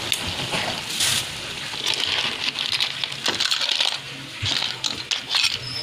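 A metal ladle scooping cooked shellfish from a wok into a ceramic bowl: the shells clink and clatter against the ladle and the bowl in quick, irregular bursts.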